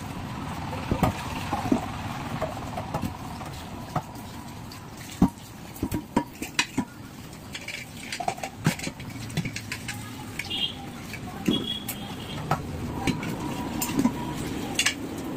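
Metal pots and utensils clinking and knocking at irregular intervals, over a steady low background noise.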